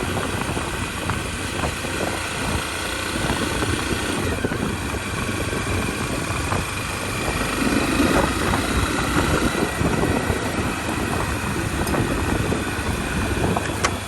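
Motorcycle running steadily while being ridden, its engine hum mixed with heavy wind rush.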